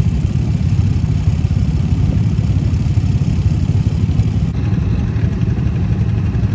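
Off-road buggy engine running steadily with a dense, even low rumble, heard from the seat inside the roll cage.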